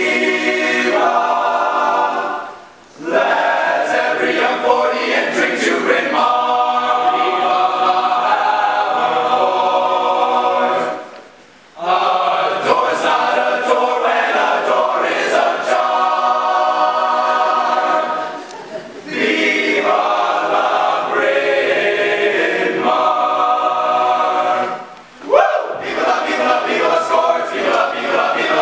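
Male a cappella group singing unaccompanied in close harmony, in long phrases broken by brief pauses about 3, 11, 19 and 25 seconds in.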